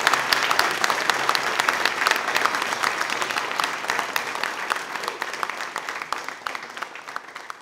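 Audience applauding: many hands clapping together, slowly dying away toward the end.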